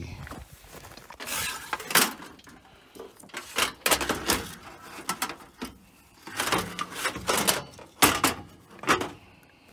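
Loose sheet-metal headlight panel on a stripped motorhome front being lifted and set back in place: a string of sharp knocks and clanks with scraping in between, the loudest about two seconds in and again about eight seconds in.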